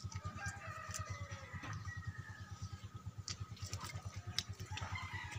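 Chickens clucking and crowing faintly, with a few sharp clicks and a low, rapid, steady throbbing underneath.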